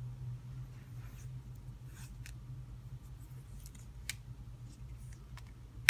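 Scattered light clicks and rustles of small objects being handled while wrapping material is fetched, over a steady low hum, with a sharper click right at the end.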